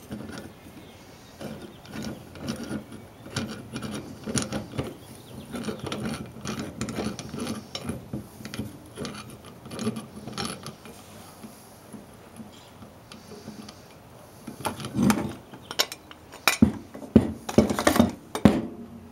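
Steel C-clamp screw being turned on a brake caliper, a run of small clicking and rubbing noises from the thread. Near the end come several louder knocks and clanks as the clamp is set down on the bench and parts are handled by a metal tin.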